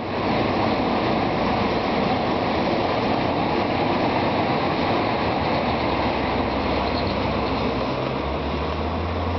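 DB Class 420 electric multiple unit running past on the main line: a steady rolling rumble of wheels on track, with a low hum growing stronger near the end.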